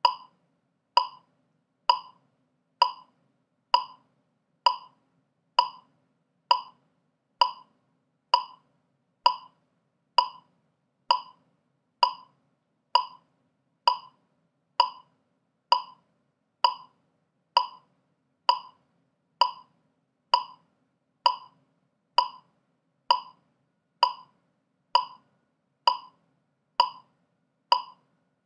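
Metronome clicking steadily at 65 beats per minute: a short, bright click a little under once a second, every beat equally loud.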